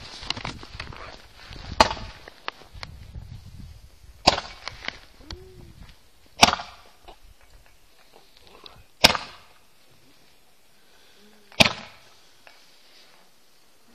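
Roman candle firework firing five shots, each a sharp pop about two and a half seconds apart as a burning star is launched, with a brief hissing trail after each.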